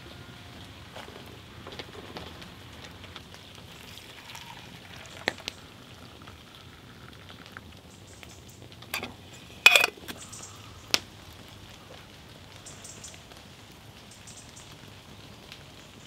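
Steady patter of rain on leaf litter, with a few sharp knocks and clinks of metal camp pots and mugs, the loudest a short ringing clank about ten seconds in.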